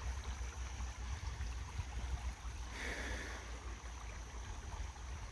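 Shallow river water running steadily, with a low rumble underneath and a short hiss about three seconds in.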